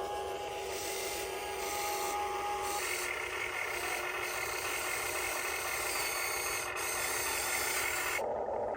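Small electric motors and gearboxes of Huina RC construction models whirring as the machines work, a steady whine whose pitch changes about three seconds in.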